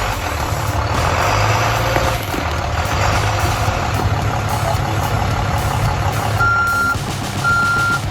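Heavy diesel machine's engine running steadily under load, with a reversing alarm beeping twice near the end, about a second apart.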